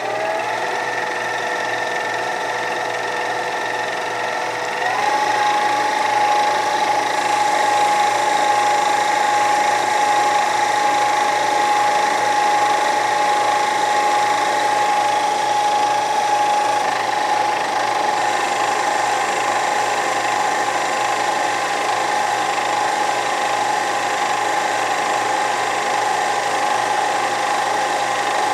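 Mini metal lathe running, its spindle motor and gears giving a steady whine while it turns an aluminium bar. About five seconds in, the whine steps up in pitch and gets louder, then holds steady.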